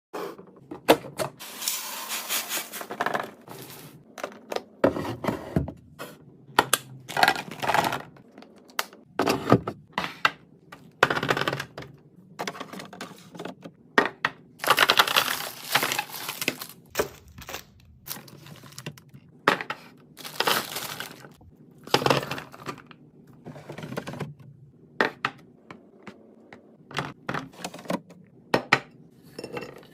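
Fridge being restocked by hand: a busy run of clicks, clinks and knocks as items are set down, mixed with short bursts of rustling packaging.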